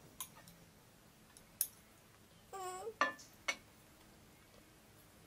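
A spoon clinking against a bowl in a few separate sharp clicks as dessert is stirred and scooped.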